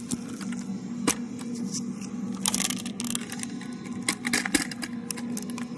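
Camera being handled and repositioned: scattered clicks, knocks and rustling, busiest about halfway through and again near the end, over a steady low hum.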